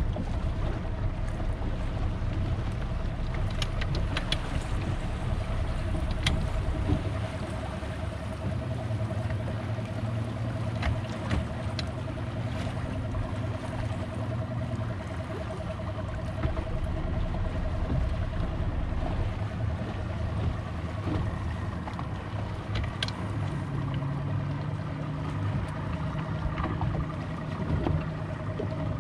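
Boat engine running at low speed under wind and water noise, its note stepping a couple of times as the throttle is adjusted, the pitch higher near the end. A few sharp ticks are scattered through it.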